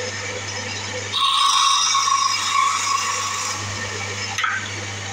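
Wood lathe running with a wooden spindle spinning on it, its motor giving a steady hum. A louder hiss comes in about a second in and fades after about three and a half seconds, with a small click near the end.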